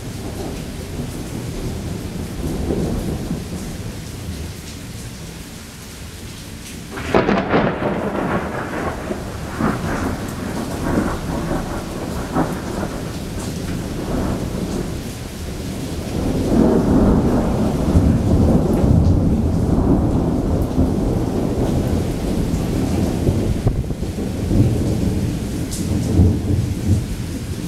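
Thunderstorm with steady heavy rain: a sudden crack of thunder about seven seconds in breaks into crackling and rumbling, and a second long, deep thunder rumble swells up later, with more rolls near the end.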